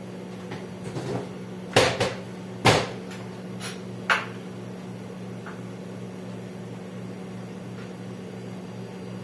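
A few sharp knocks and clatters of kitchen things being handled and set down, the loudest two about two and three seconds in, over a steady low hum.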